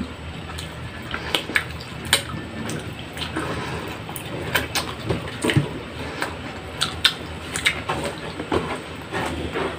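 Close-up eating sounds: wet chewing, lip smacking and finger sucking as saucy, tender pork ribs are gnawed off the bone, heard as a run of irregular sharp wet clicks.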